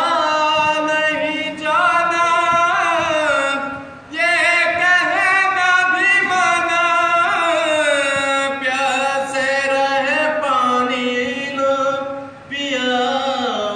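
A man reciting a noha, a Shia lamentation chant, as a solo voice into a microphone, drawing out long, sliding melodic phrases with short breaks for breath, the clearest about four seconds in.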